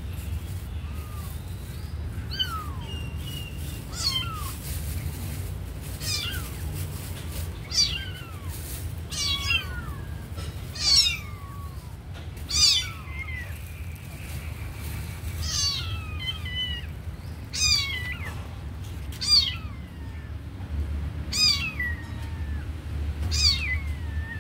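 Kitten mewing over and over: short, high-pitched mews that fall in pitch, about every one to two seconds, starting about two seconds in.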